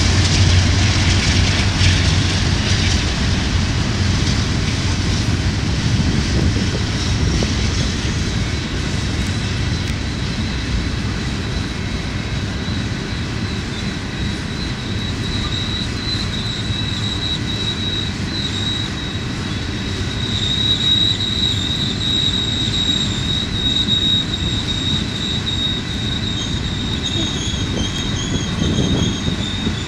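A long train of empty steel gondola cars rolling downhill around a sharp curve, its wheels rumbling and clattering on the rails. The wheel flanges squeal against the rail in a steady high tone that grows stronger from about halfway through. A low locomotive rumble fades out in the first couple of seconds.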